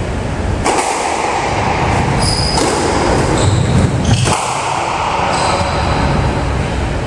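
Squash rally: a few sharp smacks of the ball off rackets and walls, roughly two seconds apart, with sneakers squeaking on the wooden court floor between them, over a steady hiss.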